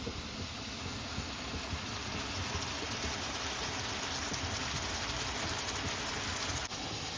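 Pots of food cooking: a steady crackling hiss of pasta water boiling and hamburger sauce simmering.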